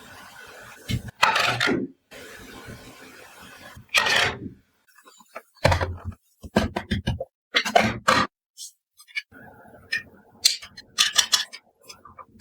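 Toy food items being handled and set down one after another: several short scrapes and light knocks, with brief pauses between them.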